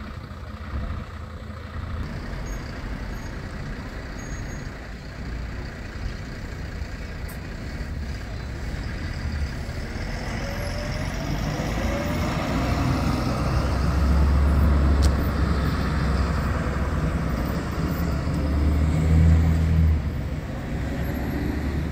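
Road traffic going past: a city bus and cars driving by close, with engine and tyre noise that gets louder from about ten seconds in and a rising engine whine as a vehicle pulls away.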